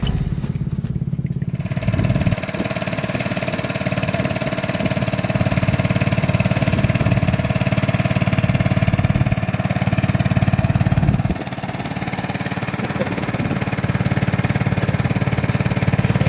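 Small boat engine running steadily with a fast, even chug, easing off briefly about eleven seconds in and then picking up again.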